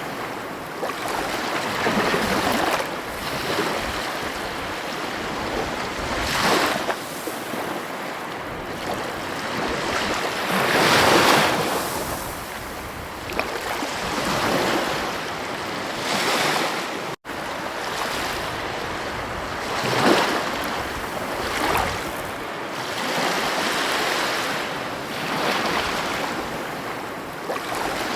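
Ocean surf breaking and washing onto a beach: a steady rush that swells every few seconds as each wave comes in. The sound cuts out for an instant about two-thirds of the way through.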